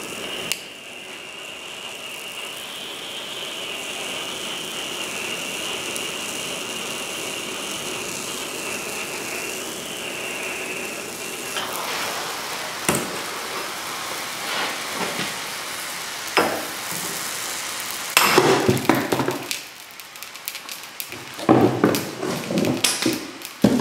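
Propane hand torch hissing steadily with a thin whistle as it heats a leaf-spring eye, burning out the old rubber bushing, which sizzles and crackles as it is ready to come out. About halfway the torch hiss stops and scattered crackles and pops go on, with two louder noisy stretches near the end.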